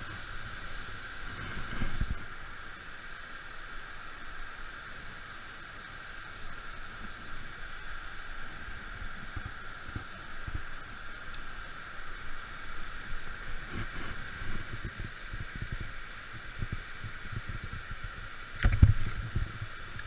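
Steady night-time river-bank ambience: a constant high drone with low rumbling handling noise, and one loud knock near the end.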